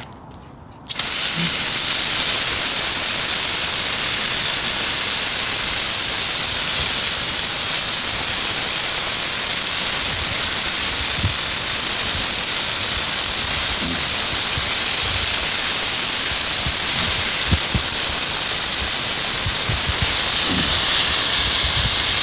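Water spraying from a garden hose nozzle onto a 20-inch Stihl chainsaw chain and bar, rinsing off coil cleaner: a loud, steady hiss that starts about a second in and cuts off abruptly at the end.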